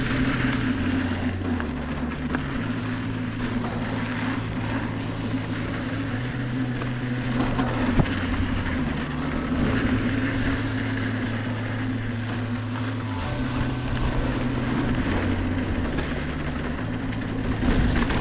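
Background music: a slow line of held bass notes changing every second or two over a steady drone.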